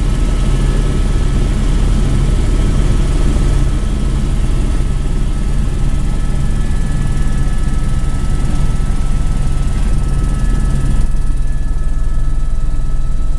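Cabin noise of a Eurocopter AS350 B2 Écureuil helicopter in flight: a loud, steady low drone of rotor and engine, with a thin high turbine whine above it.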